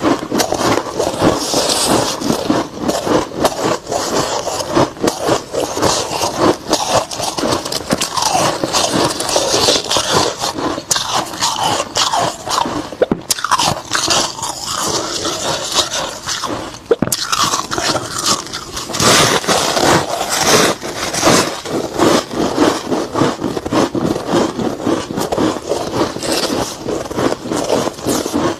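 Close-miked biting and chewing of soft freezer frost: a dense run of crunches, with a couple of brief pauses partway through.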